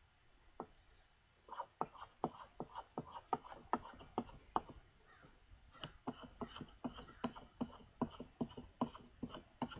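Stanley No. 64 spokeshave cutting wood in quick short strokes: a rapid series of sharp scraping clicks, about three or four a second, with a short pause a little after halfway through.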